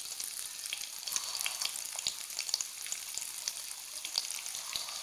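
Oil shallow-frying stuffed boiled eggs in a pan over a low flame: a steady sizzling hiss with many small crackling pops.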